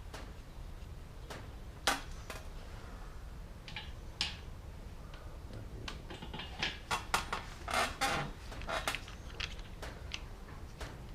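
Metal engine parts and hand tools clinking and knocking while the VR6 timing chain guides and bolts are fitted. There is a single sharp knock about two seconds in, then a busier run of clinks and rattles in the second half.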